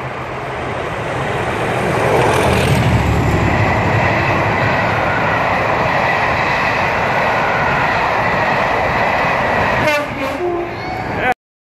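Two Class 37 English Electric diesel locomotives top-and-tailing a train of coaches pass close by. The leading locomotive's engine grows loud over the first couple of seconds, then the coaches roll past with a steady rumble. The rear locomotive goes by near the end, and the sound then cuts off suddenly.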